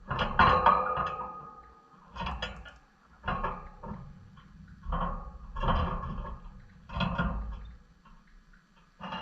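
Pet lovebirds moving about their cage: irregular bursts of rustling and knocking, about one a second.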